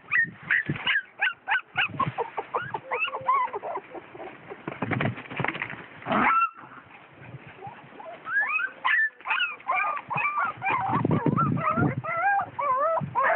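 Puppies whimpering and yelping in many short, high squeals that rise and fall in quick succession, pausing for a moment around the middle. Low knocks and handling noise come in under them.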